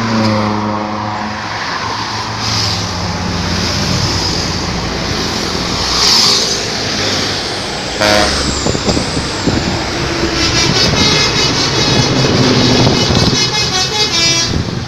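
Bus's telolet horn playing its tune of multi-tone notes that step up and down in pitch, over engine and traffic noise. In the last few seconds it breaks into a faster, higher-pitched run of notes.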